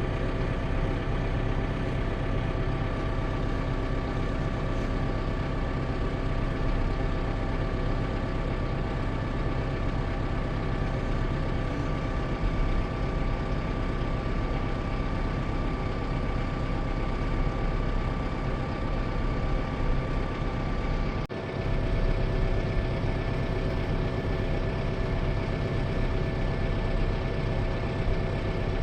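A heavy engine idling steadily, with a brief dip about two-thirds of the way through.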